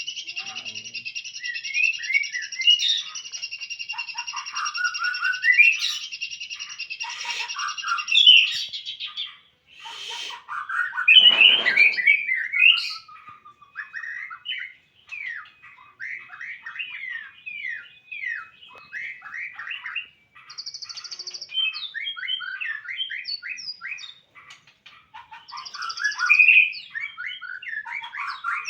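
Caged murai songbird singing vigorously: a long run of quick, varied whistled notes and slides. A steady high buzzing trill runs under it for about the first eight seconds, and there is a single knock about eleven seconds in.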